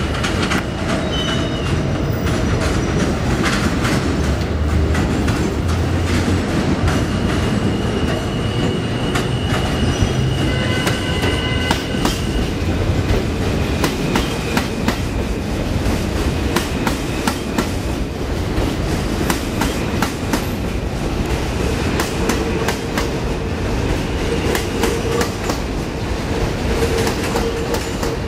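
An R160A-1 subway train pulls into an elevated station. Its wheels rumble and clatter in rapid clicks over the rail joints, with brief high wheel squeals, and a steady hum comes in over the last several seconds as it stops at the platform.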